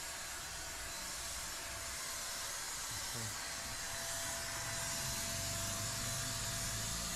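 Handheld electric paint spray gun running, a steady hiss of atomised paint and air with a faint high whine, a little louder in the second half.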